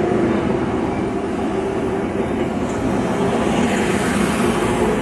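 Steady rumble of passing vehicles, with a low hum of several held tones and no sudden events.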